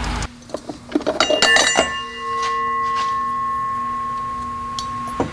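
Loose steel parts of a TH350 automatic transmission clinking together several times, then one part ringing like a bell with a clear, steady ring of several tones that fades slowly and is cut off suddenly near the end.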